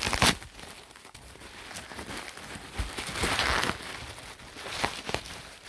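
Bubble wrap and plastic packaging rustling and crinkling as it is pulled open by hand, with sharp crackles at the start and a louder stretch of rustling about three seconds in.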